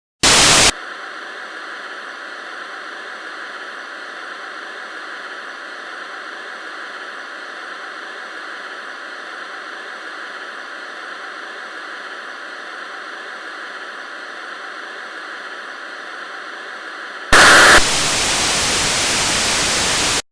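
Steady hiss of static, like a dead broadcast channel. There is a short loud burst right at the start, and a louder burst about 17 seconds in that drops into harsher, louder static, which cuts off abruptly near the end.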